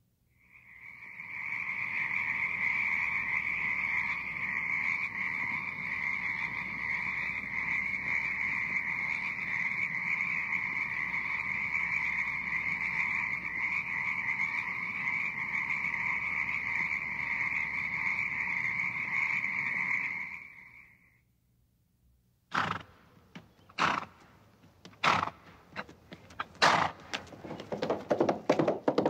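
Recorded sound effect of a dense frog chorus, a steady croaking that fades in at the start and cuts off about 21 seconds in. After a second of silence, a run of sharp knocks follows, coming quicker near the end.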